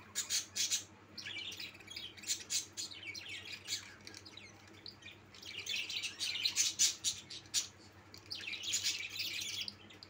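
A flock of caged budgerigars chirping and chattering in bursts of rapid high chirps, with brief lulls about four and eight seconds in.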